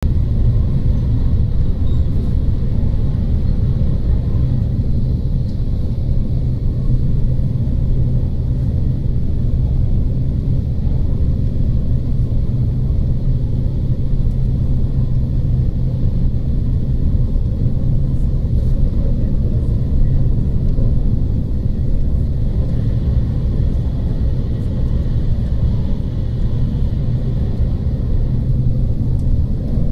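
Steady low rumble inside the passenger cabin of an E5 series Shinkansen running at speed through a station without stopping.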